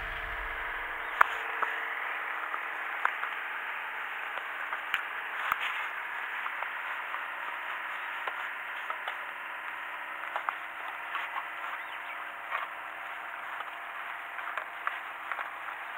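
Steady hiss of sea water below the angler, with scattered light clicks and taps. The sharpest click comes about a second in.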